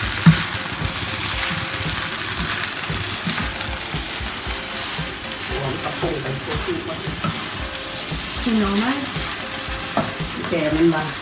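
Fried rice sizzling and spattering in a hot oiled frying pan while a wooden spatula stirs and scrapes through it, with sharp knocks of the spatula against the pan, the loudest about a third of a second in.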